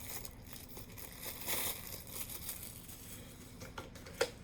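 Plastic packaging crinkling as the wrapping around a USB-C cable is opened by hand, with a louder rustle about a second and a half in and two sharp clicks near the end.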